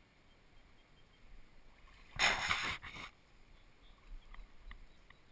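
Water splashing for about a second, a little over two seconds in, over the faint steady rush of the river.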